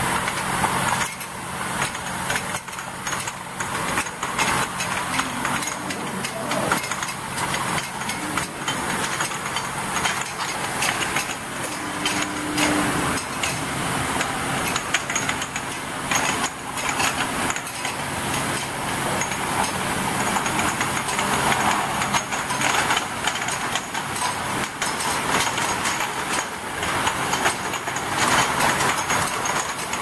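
Bottle washing machine with a rotary bottle feeder running: glass bottles continually clinking and rattling against each other and the guide rails as the turntable crowds them along, over a steady low machine hum.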